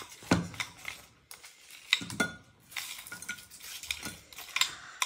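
Metal spoon scooping from a bowl, clinking and scraping against its sides several times.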